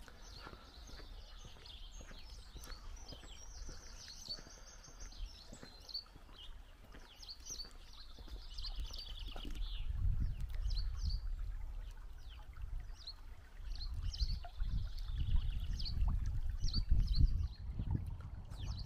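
Small songbirds singing repeated high trills and chirps over the running water of a fast-flowing shallow stream. A low, gusty rumble swells in the second half and is the loudest sound.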